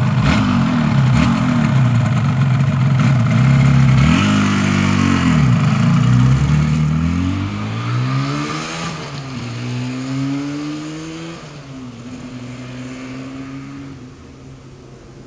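Yamaha RD F2 two-stroke motorcycle running loudly: it is revved up and down, then pulls away, its pitch climbing and dropping at gear changes twice while it fades into the distance.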